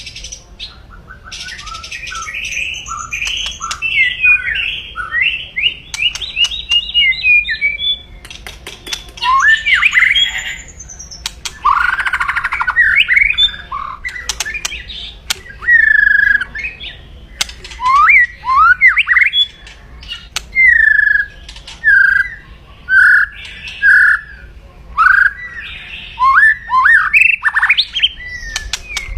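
White-rumped shama (Medan murai batu) giving its aggressive 'kretekan' call: a fast run of short, harsh notes for the first several seconds, then separate loud squawks and sweeping whistled notes mixed with sharp clicks.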